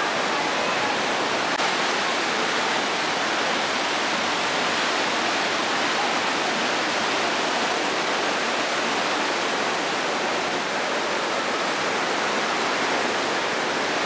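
Mountain stream rushing over boulders and small cascades: a steady, unbroken rush of white water.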